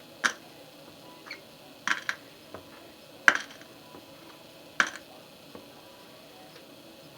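Metal push pins being pulled from the work board and set down, giving a handful of sharp clicks a second or two apart, one of them a quick double click.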